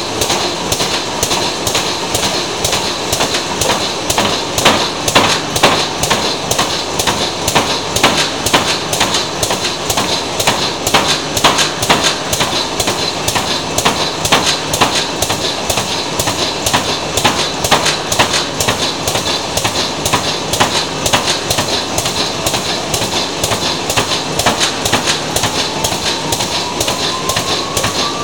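Veneer clipper on a rotary peeling line cutting a ribbon of maritime pine veneer into sheets, with a regular clack about twice a second over the steady running of the line's motors and conveyors. A faint whine rises in pitch near the end.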